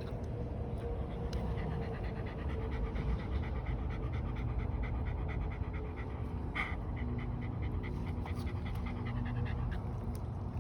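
Shiba Inu panting rapidly and rhythmically, over a steady low rumble.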